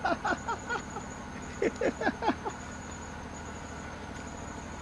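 A man laughing in two runs of short, falling 'ha' sounds in the first half, over a steady high cricket chirr.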